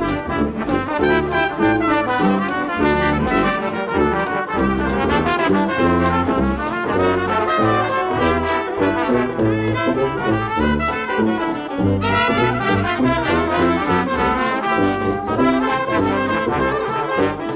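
Upbeat jazz music led by brass: trombone and trumpet over a walking bass line.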